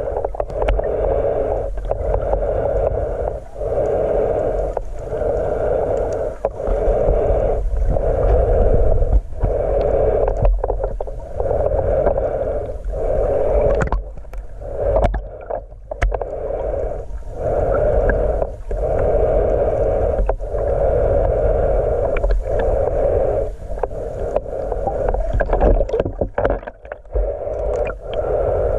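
Water swishing around a small boat, a rhythmic stroke about every second and a half, over a steady low rumble.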